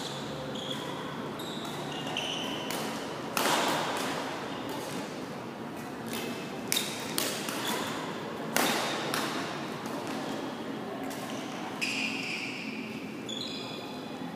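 Badminton rally in a large echoing sports hall: a string of sharp racket hits on the shuttlecock, several in quick succession in the middle, with short high squeaks of court shoes on the floor.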